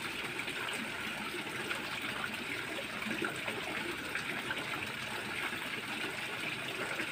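Water pouring steadily from an inlet pipe into a small koi pond, splashing on the surface.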